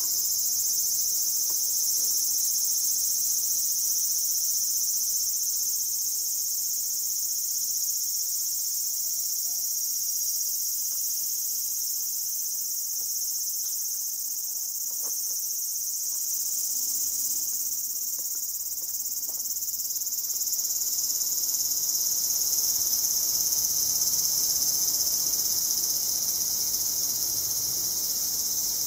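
Insect chorus: a dense, steady high-pitched buzz of many insects singing together, swelling a little in the later part.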